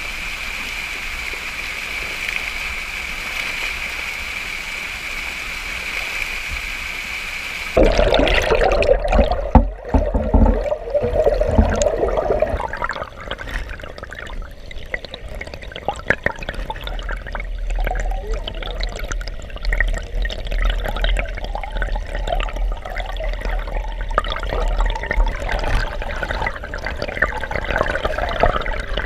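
Water pouring over a small rocky waterfall on a brook, a steady hiss. About eight seconds in, the sound turns abruptly louder, muffled and irregular, with low rumbling, as the microphone goes under the rushing water.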